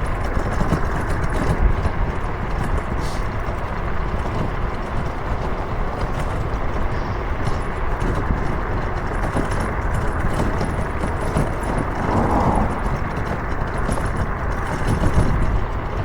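Steady road and engine noise of a vehicle driving uphill on a mountain road.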